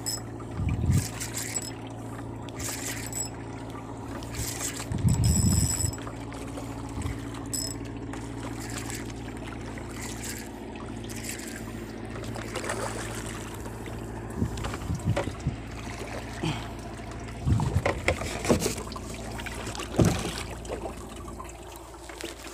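A small fishing boat's motor humming steadily, with dull thumps and knocks from handling a spinning rod and reel as line is retrieved; the loudest thump comes at about five seconds.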